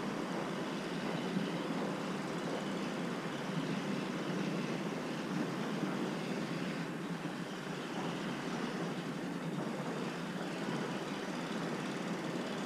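A kitten purring steadily, a continuous rumble with no breaks: the sign of a relaxed, contented cat.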